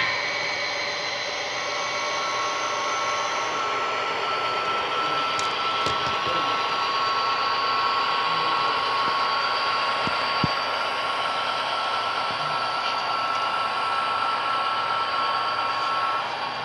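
Model train of diesel locomotives and passenger cars running past: a steady whirring rush of motors and wheels on the track, with a steady high whine that starts about a second and a half in and stops shortly before the end.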